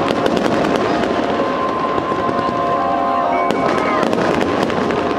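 Aerial fireworks crackling, a rapid run of many small pops, over music with held notes playing through the show's loudspeakers.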